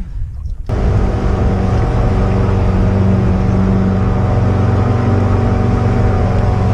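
A motorboat engine running steadily at an even pitch. It comes in abruptly less than a second in.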